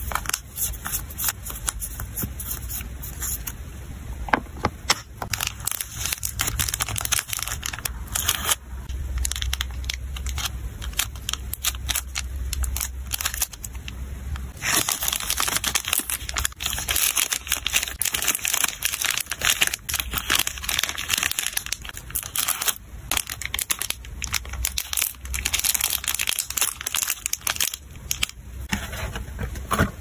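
Close-up handling of small paper items and plastic packaging. Paper stickers rustle and tick against a clear plastic case. From about halfway, a snack packet is pushed into a thin clear plastic bag, and the crinkling grows dense and steady.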